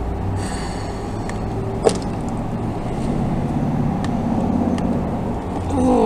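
Low rumble of a motor vehicle going past, swelling about halfway through and then easing off, with a single sharp click about two seconds in.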